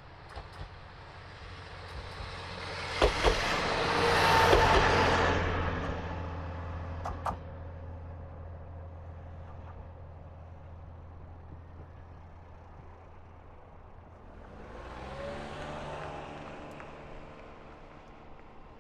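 KiHa 40 diesel railcar passing close by: rail and wheel noise swells up and dies away over a steady low diesel drone, with a few sharp wheel clicks over rail joints. Later a softer engine note rises and fades.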